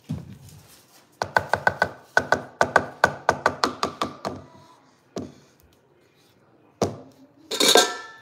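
Silicone spatula stirring mashed potatoes in a metal saucepan: a quick run of knocks, about five a second for some three seconds, with the pot ringing faintly. Then a few single knocks and a short scrape near the end.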